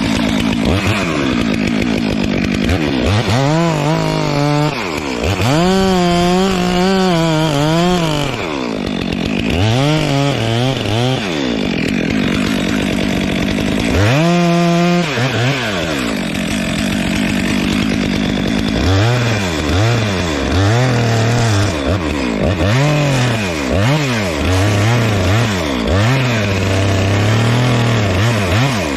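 Two-stroke chainsaw cutting the felling notch in a dead tree, its engine revving up and dropping back again and again. There is one longer stretch held at full speed about halfway through, and quick repeated throttle blips in the last ten seconds.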